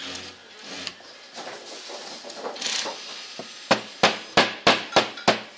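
A mallet striking the metal head assembly of an electric pruner six times in quick succession, about three sharp blows a second, after a few seconds of handling and scraping of the parts.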